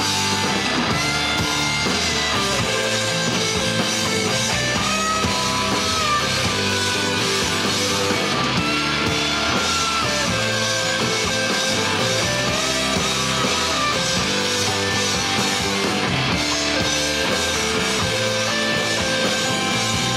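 Rock band playing live: two electric guitars, bass guitar and drum kit.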